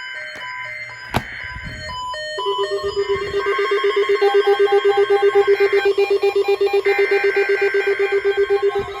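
NOAA Weather Radio SAME data header: three long bursts of paired high warbling data tones with short gaps between them. About two seconds in, a weather radio receiver's alarm starts beeping in rapid, even pulses.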